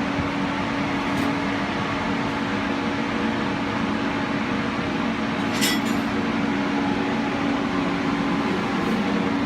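UBS 2200 drilling rig's machinery running steadily: a loud, even mechanical hum holding one steady tone, with a single short click about five and a half seconds in.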